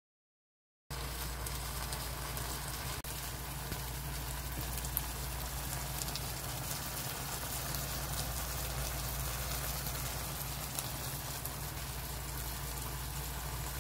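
Pork and kimchi sizzling in a frying pan, a steady fine crackle over a low steady hum. The sound is silent for about the first second, then cuts in.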